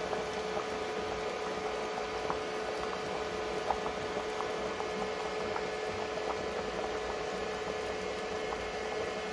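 A pot of goat head and feet soup in tamarind broth boiling hard: a steady bubbling with small scattered pops, over a steady hum.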